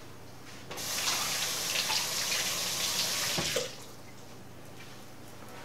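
Kitchen sink faucet turned on about a second in, water running for about three seconds to rewash food, then shut off suddenly.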